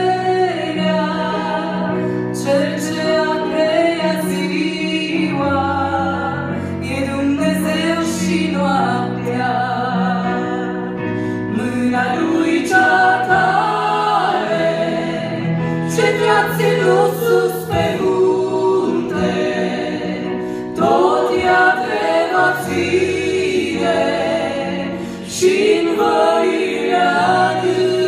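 Two women singing a gospel song together through microphones, over a musical accompaniment with sustained low chord notes.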